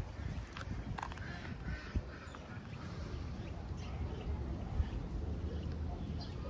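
Birds calling, with several short calls in the first two seconds and fainter ones after, over a steady low rumble.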